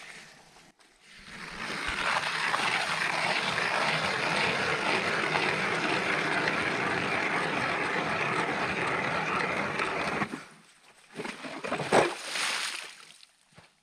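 Hand-cranked ice auger grinding steadily through lake ice for about nine seconds, then stopping. Near the end the blades break through and lake water surges up the hole as the auger is lifted out, the loudest moment being a brief splash.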